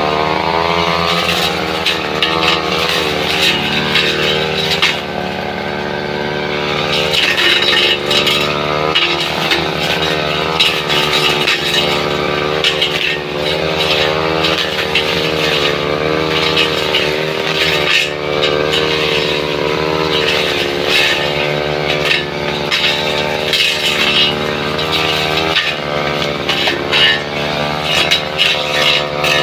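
Two-stroke brush cutter engine running at high speed, its pitch dipping and recovering again and again as the blade cuts into grass and wood.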